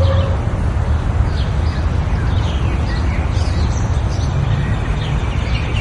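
Birds chirping in short scattered calls over a steady low rumble, like an outdoor ambience bed.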